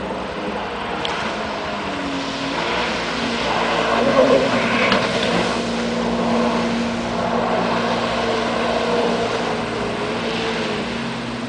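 Jet ski engine running at speed through turns, a steady engine note over the hiss of spray, loudest about four to five seconds in.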